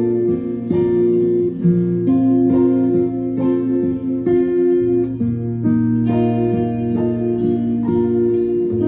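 Guitar playing an instrumental passage, plucked notes ringing over a steady low note, with new notes struck about every half second.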